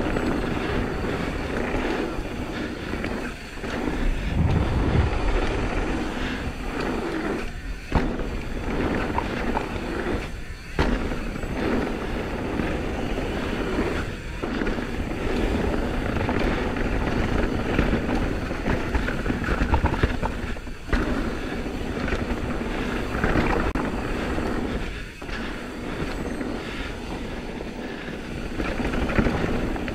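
Intense M16 downhill mountain bike riding fast down a dirt trail: tyres rolling over dirt and roots, the bike rattling, with a few sharp knocks from bumps. Wind rushes across the GoPro's microphone throughout.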